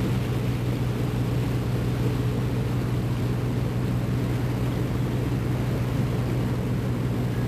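Motor cruiser's engine running steadily under way, a constant low drone.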